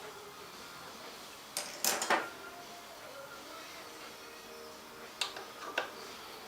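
Metal clinks of a wrench and loosened bolts on a motorcycle's rear brake caliper as the caliper bolts are unscrewed: a short cluster of clinks about two seconds in, then two single clinks near the end.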